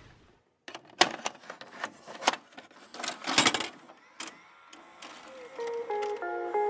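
VHS videocassette-loading sound effect: a run of sharp mechanical clicks and clunks. Plucked guitar music starts about five seconds in.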